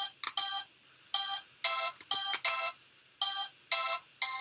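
Simon Micro handheld electronic memory game beeping as its coloured buttons are pressed rapidly: about a dozen short electronic tones in quick succession, with sharp button clicks among them.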